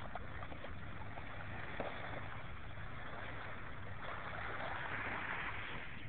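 Steady wash of small waves at the water's edge of a beach, swelling a little about four seconds in.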